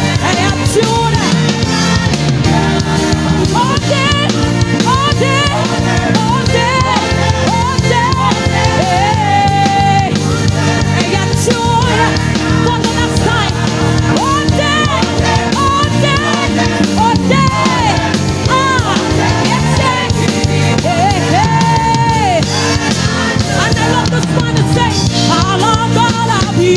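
Live church praise-and-worship band playing loud and steady, with a drum beat, bass and a bending melodic lead line.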